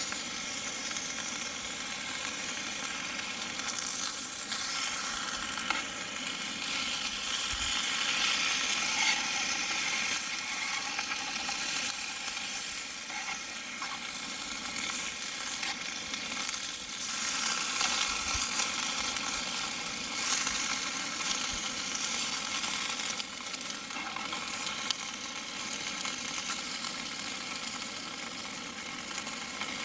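Steak, potatoes and jalapeños sizzling steadily in a small non-stick camp frying pan over a canister stove, with now and then a knife scraping and tapping in the pan as the food is turned.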